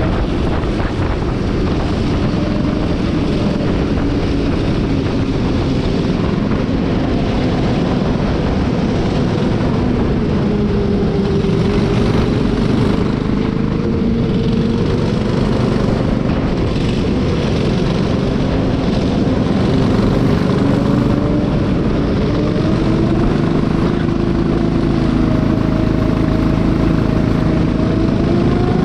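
Racing kart's Honda four-stroke engine running hard throughout, its pitch dropping and climbing again several times as the kart slows and accelerates.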